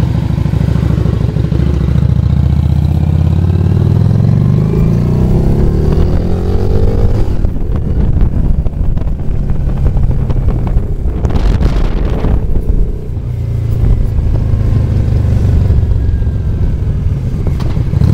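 Motorcycle engine heard from the bike while riding, its pitch rising as it pulls for the first several seconds, then steady. A short rush of noise comes about twelve seconds in, followed by a brief lull before the engine pulls again.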